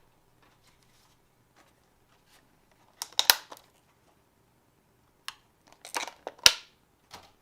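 Handling noises during a laptop memory upgrade: two clusters of sharp clicks and crackling scrapes, one about three seconds in and a louder one around six seconds, with a faint click near the end.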